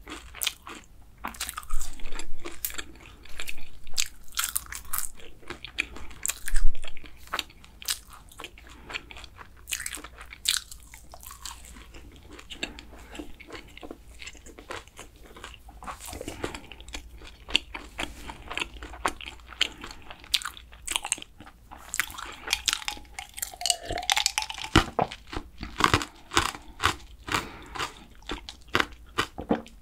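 Close-miked crunching and chewing of flaky, caramelized kouign-amann pastry, with many short, sharp crackles as the crisp layers break in the mouth.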